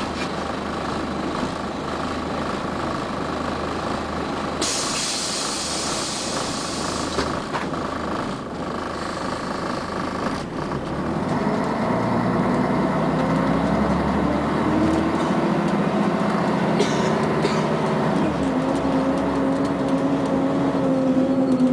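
Scania CN113ALB articulated city bus heard from inside the cabin: its diesel engine idles at a standstill, with a hiss of compressed air lasting a couple of seconds. About halfway through, the bus pulls away and the engine note rises as it accelerates, dipping once near the end as the gearbox shifts up.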